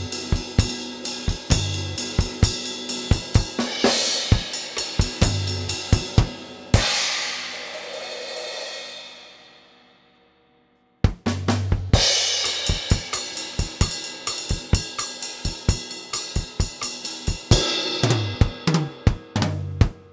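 Acoustic drum kit played in a steady groove of kick drum, snare and hi-hat. About seven seconds in, a cymbal crash is left to ring and fade away almost to silence, then the beat starts again around eleven seconds.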